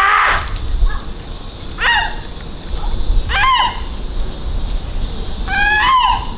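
Animal-like cries: a long one cutting off about half a second in, then three short ones, each rising then falling in pitch, over a low steady rumble.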